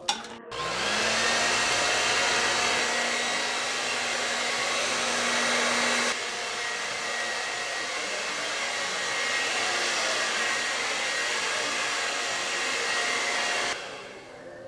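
Handheld hair dryer switched on with a click, its motor spinning up in about half a second, then blowing steadily. About six seconds in its sound drops a little, and it is switched off shortly before the end.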